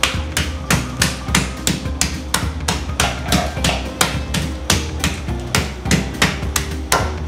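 Meat tenderizer hammer pounding raw chicken breast flat: steady, evenly spaced blows, about three a second.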